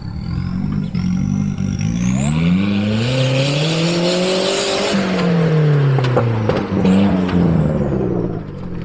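Off-road 4x4's engine revving up hard and then easing off. Its pitch climbs for about three seconds and falls away again, with a thin high whine rising and falling along with it.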